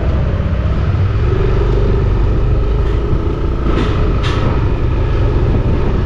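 Motorcycle engine running steadily under way, with a constant low rumble of engine, road and wind noise heard from the rider's seat.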